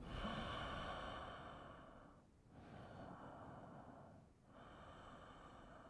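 Slow, deep breathing close to the microphone during a seated yoga forward fold: three long, soft breaths in a row, the first the loudest and fading out over about two seconds.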